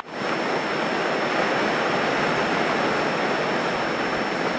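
Steady rushing cabin noise of a Grumman single-engine light airplane in cruise flight: engine, propeller and wind heard as an even hiss, with a faint thin high tone. It comes in suddenly at the start.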